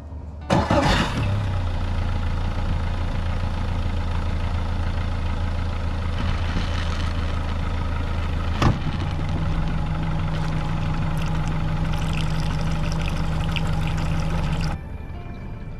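Yamaha four-stroke outboard motor starting and then running at a steady idle. About nine seconds in there is a single clunk as it is shifted into gear, after which a second, higher hum joins the engine note; the sound cuts off suddenly near the end.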